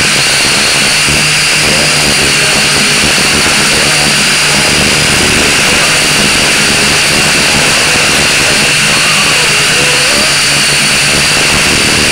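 Blade 180 QX micro quadcopter's motors and propellers whining steadily, close up as picked up by its onboard camera, with the pitch wavering slightly as it flies.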